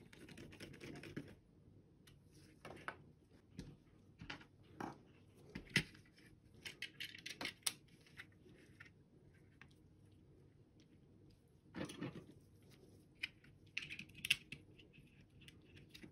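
Plastic shell and internal parts of a SteelSeries Sensei 310 gaming mouse clicking, tapping and scraping as they are handled and fitted back together. Irregular small clicks come with a few brief rasping scrapes.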